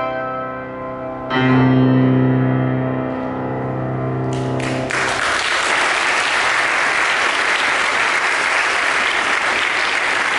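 Grand piano's closing chords: a chord rings out, then a last loud chord is struck about a second in and held for a few seconds. Audience applause begins about five seconds in and continues steadily.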